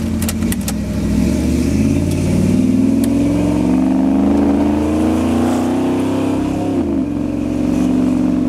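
Vortec 350 small-block V8 in a 1978 Chevrolet pickup accelerating, heard from inside the cab. The engine note climbs steadily, drops suddenly about seven seconds in as the Turbo 350 automatic shifts up, then holds steady.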